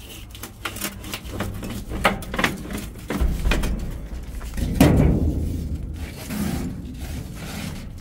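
The thin sheet-metal outer jacket of an old gas water heater being pried and bent back by hand, scraping and rattling, with one louder metallic clank that rings briefly about five seconds in.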